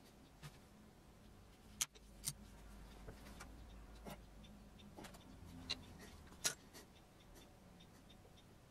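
Small hand sculpting tools working a clay figure: faint scraping with scattered sharp clicks, the loudest about two seconds in and again past six seconds.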